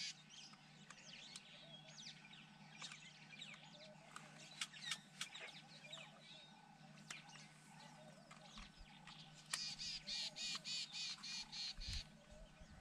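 Wild birds calling and chirping in scattered short notes, then a fast run of the same sharp call repeated about four times a second for two or three seconds near the end.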